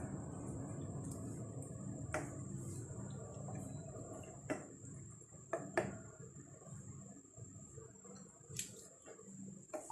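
Wooden spatula stirring moringa pods in a coconut-milk sauce in a nonstick frying pan, with a soft low rumble of scraping and simmering that fades about halfway, and a few light knocks of the spatula against the pan.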